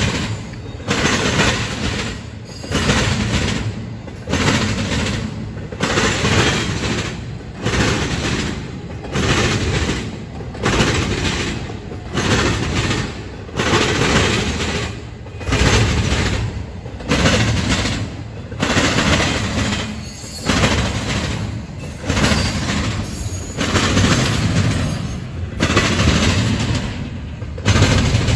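Steel wheels of a passing intermodal freight train clattering over the rails in a steady rhythm, a burst of clacks every second and a half or so, over a continuous rolling rumble.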